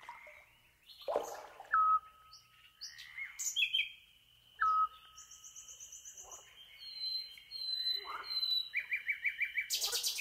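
Common nightingale song in a tape-music piece: repeated short whistled notes that flick up at the start, fast trills and a long steady high whistle, with a brief harsh burst near the end.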